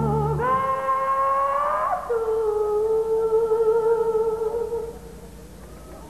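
Music accompanying the dance: slow, long held notes that waver slightly, the bass dropping out about half a second in, and the music growing quieter near the end.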